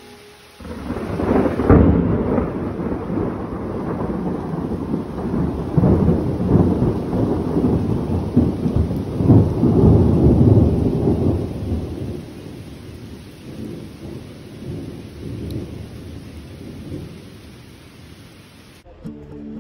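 A long roll of thunder over steady rain. The rumble starts about a second in, stays loud and uneven for about ten seconds, then slowly dies away, while the rain hiss carries on throughout.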